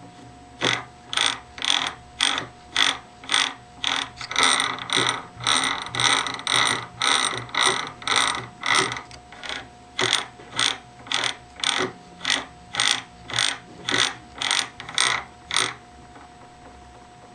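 Brass pinion and steel ring gear of a miniature 9-inch Ford differential meshing as they are turned by hand: a regular gear-tooth rattle in short rasps, about two a second, that stops about a second before the end.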